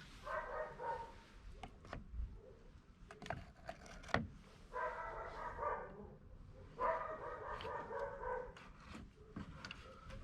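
Car alternator drive belt squealing in spells of one to two seconds, a cluster of steady high tones, with a few sharp clicks of tools in between. The squeal comes from the belt slipping on its pulleys, which the owner puts down to slippage.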